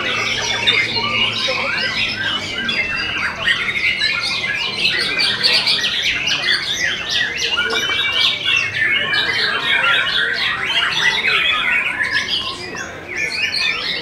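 White-rumped shama singing a loud, unbroken run of quick, varied chirps and whistles, with a brief lull near the end.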